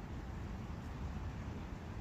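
Forest ambience by a brook: wind and running water blend into a steady, even rumbling hiss, weighted toward the low end.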